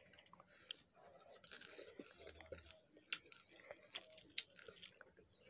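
Close-up chewing of a mouthful of rice and chicken, with irregular small wet smacks and clicks. Fingers scoop rice on the plate.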